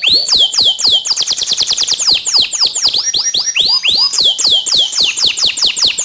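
Canary singing a fast song of repeated high, arching whistled notes, several a second. About a second in it breaks into a quicker, higher trill for about a second, then returns to the arching notes.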